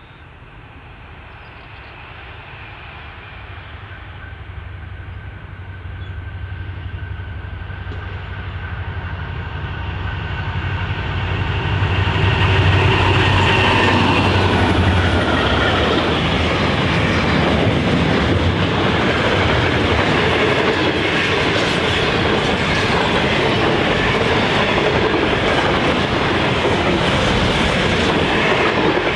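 Diesel-electric locomotives hauling an intermodal container freight train, their engines growing steadily louder as they approach and pass. Then comes the steady rumble of the container wagons rolling past, with a run of wheel clicks over the rail.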